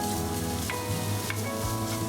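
Food sizzling in hot oil in a pan and being stirred, with a few sharp clicks of the spatula against the pan. Background music with held notes plays under it.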